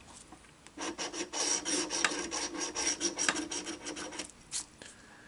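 Scratch-off lottery ticket being scratched, a quick run of short scraping strokes across the card's coating that starts about a second in and stops a little after four seconds.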